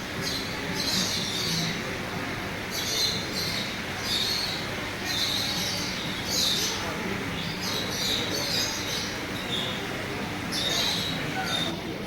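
Small cage birds chirping and chattering in short repeated clusters, over a steady low background hum.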